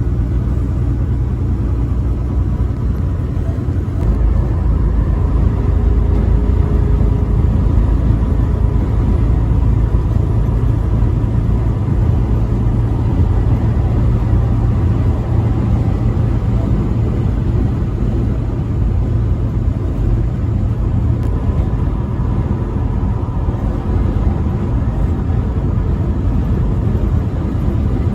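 Semi-truck driving at highway speed: a steady low rumble of engine and road noise, a little louder from about four seconds in.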